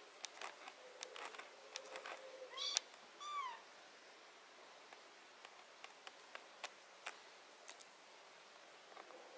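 A kitten meowing twice about three seconds in: a short rising mew, then a slightly longer one that falls in pitch. Scattered light clicks and rustles run through it as the kitten is handled and combed.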